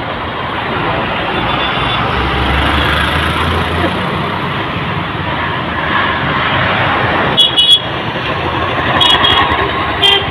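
Heavy road traffic in a jam: engines running and tyre noise close by, with several short horn toots in the last few seconds.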